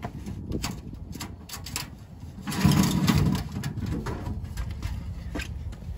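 Scattered clicks and clinks of hand tools being handled while a socket is picked for the caliper bolts, with a louder rustling noise about two and a half seconds in that lasts under a second.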